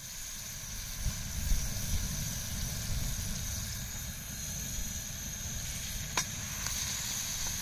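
Rib-eye steak sizzling steadily in a hot pan, held on its fat edge so the fat renders and caramelises, over a low steady rumble.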